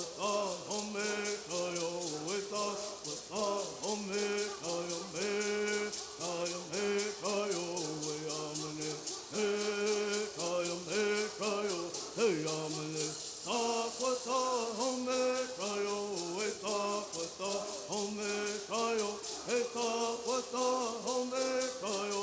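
Bird singing: voices singing a chant in unison in short repeated phrases, over the steady, rapid shaking of gourd rattles.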